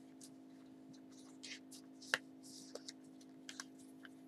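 Paper and card rustling and light clicks as a handmade paper album's pages and inserts are handled, with one sharp tick about two seconds in. A faint steady low hum sits underneath.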